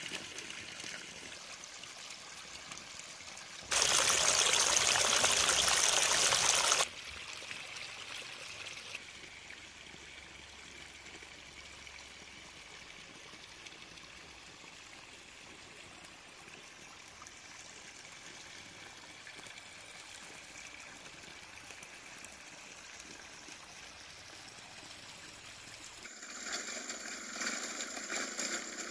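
Water running from a plastic pipe and splashing onto rocks, a steady trickling flow. There is a much louder rush of water for about three seconds starting about four seconds in, and the sound changes again near the end.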